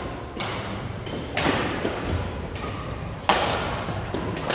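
Badminton rackets striking a shuttlecock in a rally: three sharp hits about a second or two apart, echoing in a large gym hall, the last and loudest about three seconds in.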